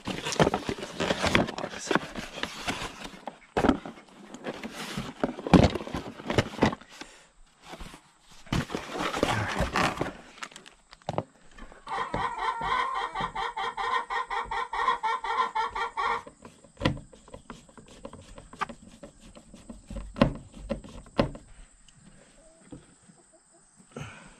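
Rustling and clattering of a cardboard box and plastic parts being handled, with sharp knocks. In the middle a chicken gives a drawn-out squawk lasting about four seconds.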